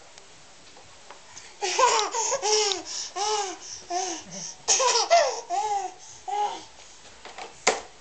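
A baby laughing in two runs of short, high, rising-and-falling giggles, starting a couple of seconds in and stopping a second or so before the end. A single sharp click comes near the end.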